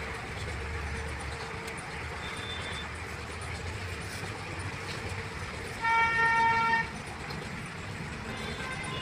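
A vehicle horn sounds one toot lasting about a second, about six seconds in, over a steady low background rumble.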